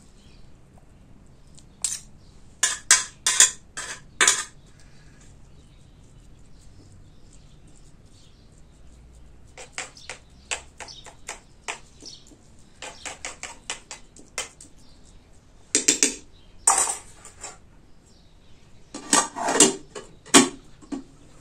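Metal spoons scraping and clinking against metal pots as rice and shredded chicken are spooned into a pot, in several short bursts of clinks. Near the end a metal pot lid is handled and set on with a clatter.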